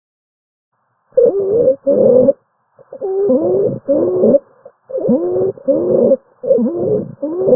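Abnormal breath sounds: rapid, noisy breaths coming in pairs about a second in, with musical tones that bend in pitch on each inhale and exhale, like wheezing.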